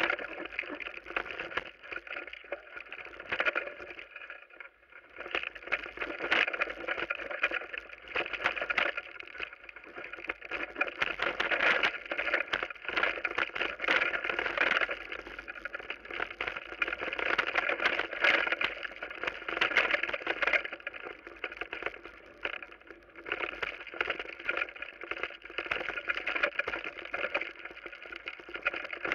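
Mountain bike descending a rough forest trail: a continuous clatter and rattle of the bike and its tyres over boards, roots and dirt, picked up by a camera riding on the bike or rider. It eases briefly about four seconds in.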